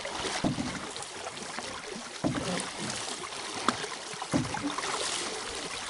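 Canoe paddle strokes in the water, with water splashing and lapping against an aluminum canoe hull and a few sharp knocks along the way.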